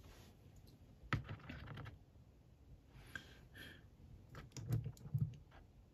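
Scattered light clicks and taps of a plastic action figure being handled and set down among others on a display, with two dull low knocks near the end.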